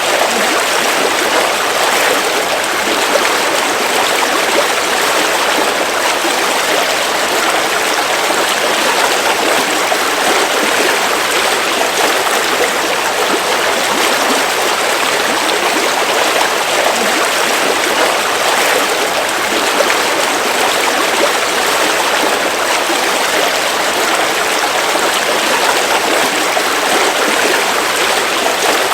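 River water flowing steadily: an even, unbroken rush of running water.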